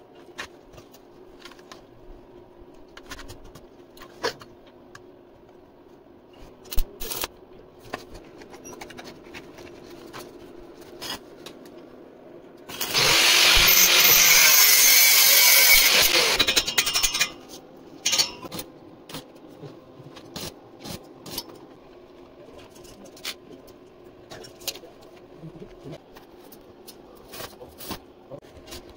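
A power tool runs loudly for about four seconds midway, amid scattered knocks and clicks of hand work on the balcony grill.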